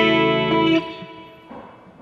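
Electric guitar with Seymour Duncan P-Rail pickups, played through a small NUX Mighty Lite amp: a chord rings out, then is muted a little under a second in, leaving a short quiet gap with faint string noise.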